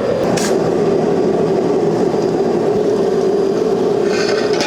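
Forging press running while it squeezes the hot steel tang flat: a steady, loud mechanical hum whose pitch sags slightly as the press works. A short hiss comes near the end.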